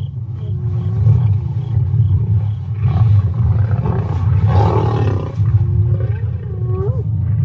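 Lions growling and snarling in a continuous low rumble, with a loud harsh snarl about halfway through. Spotted hyenas give pitched calls that glide up and down near the end.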